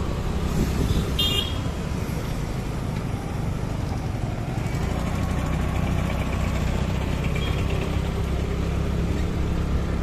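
Steady low engine hum of a motor vehicle riding through street traffic. A brief high horn beep comes about a second in.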